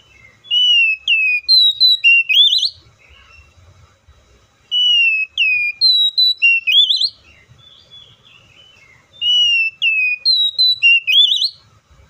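Oriental magpie-robin singing: the same phrase of clear whistled notes, with falling and rising glides ending in quick upward sweeps, repeated three times with pauses of about two seconds between.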